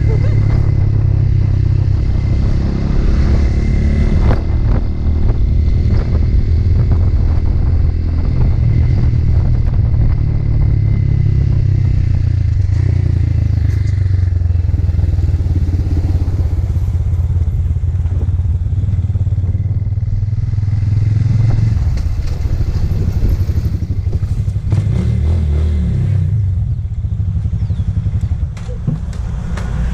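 Motorcycle engine running steadily while under way.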